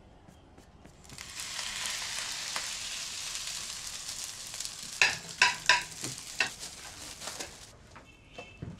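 Rice stir-frying in a wok, a steady sizzle starting about a second in and stopping near the end. Midway a utensil knocks sharply against the wok four times.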